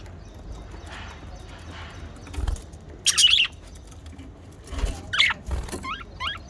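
Budgerigar chirping in short, quick calls, loudest about three seconds in and again past the five-second mark, with a few soft low thumps among the chirps.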